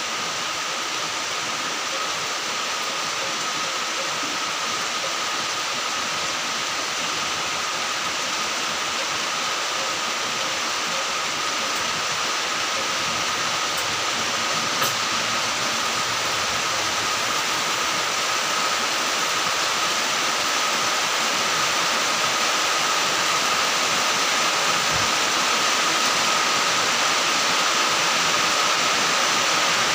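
A motor-driven fan running steadily: an even rushing noise with a high whine, growing slowly louder.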